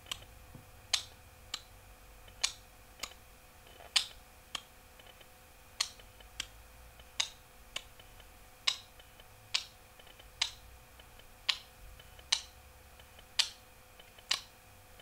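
A series of sharp clicks, mostly in pairs about half a second apart with the first click of each pair louder, over a faint steady hum.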